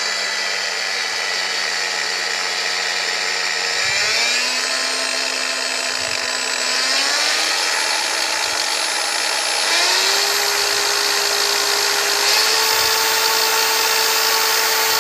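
Makita DGA463 18V brushless 115 mm angle grinder running with no load, its variable-speed dial stepped up from 1 to 5: a steady motor whine that jumps up in pitch four times, every two to three seconds.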